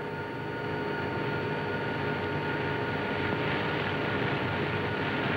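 Steady drone of a clipper airliner's propeller engines in flight, heard through the hiss of an old film soundtrack, growing a little louder from about a second and a half in.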